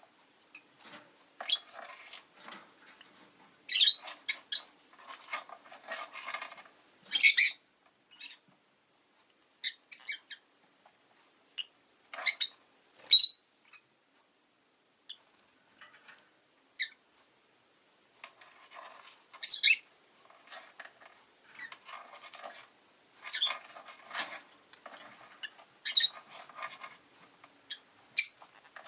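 Rosy-faced lovebirds calling: sharp, high chirps come singly or in short clusters every few seconds, with softer chattering between them.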